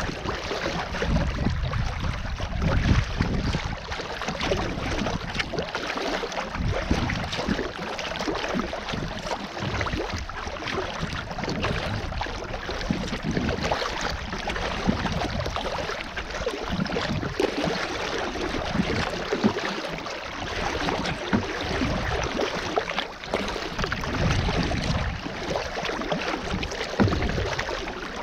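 Water splashing and lapping against a sea kayak's hull as it is paddled across choppy sea, with wind rumbling on the microphone in uneven gusts.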